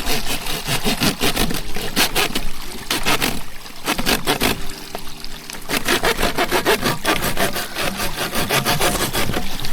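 Hand saw cutting through PVC irrigation pipe in quick back-and-forth strokes, with short pauses about three and a half and five and a half seconds in.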